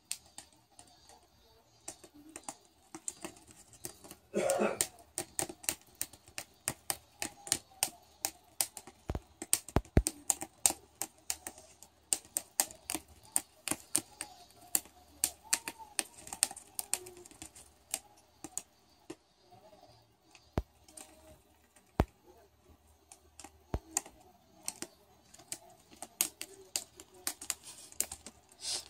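Peach-faced lovebird biting through paper with its beak: a quick, irregular run of sharp, crisp clicks as it snips strips from the sheet. This paper-cutting is the nest-building behaviour usually seen in females.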